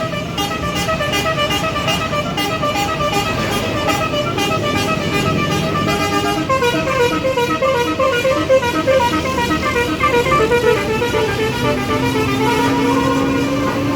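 Bus basuri (telolet) melody horn playing a quick tune of short stepped notes, switching to a different tune about halfway through. A steady lower horn tone sounds for the last couple of seconds.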